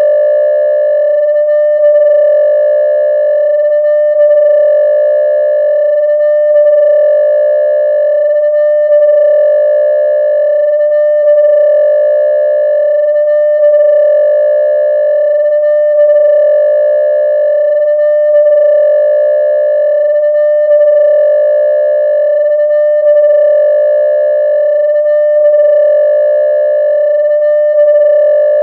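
Synthesized Star Trek electronic sound effect: a loud steady tone with several higher overtones that swells and warbles in pitch on a slow, even cycle about every two and a half seconds.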